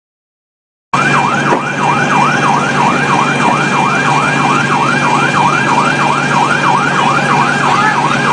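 Emergency vehicle siren in a fast yelp, sweeping up and down about three times a second over a steady hum; it cuts in about a second in after a moment of dead silence.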